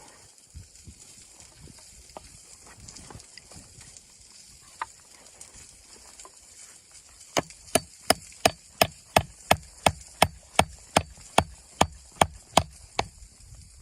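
Wood being chopped, a run of about sixteen quick, even strikes at roughly three a second, starting about halfway in and stopping shortly before the end; a few lighter knocks come before it.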